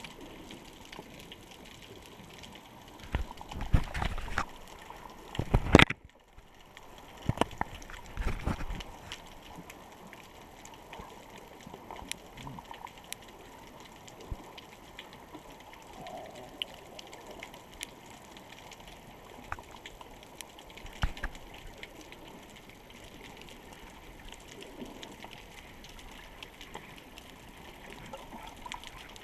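Underwater sound heard through a GoPro's waterproof housing: a steady muffled water hiss with scattered faint clicks. Several louder bumps come between about three and nine seconds in, and another about 21 seconds in.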